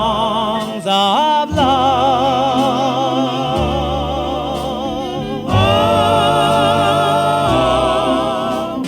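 Doo-wop vocal group singing long held harmony notes with wide vibrato over a slow instrumental backing, the chord changing a couple of times.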